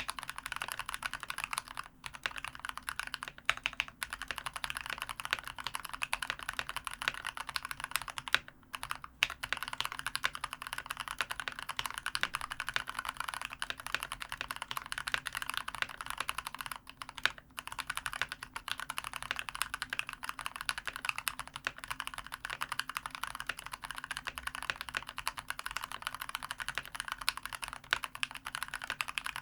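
Fast continuous typing on a COX CK108 mechanical keyboard with spray-lubed Gateron Brown tactile switches and a foam-dampened case, with brief pauses about 2, 4, 8.5 and 17 seconds in. The sound is muted; the hastily lubed stabilizers sound dull.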